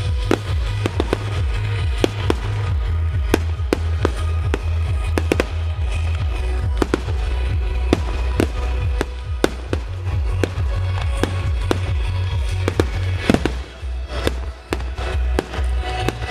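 Aerial firework shells bursting in quick succession, a string of sharp bangs several a second at times, over music with a heavy steady bass.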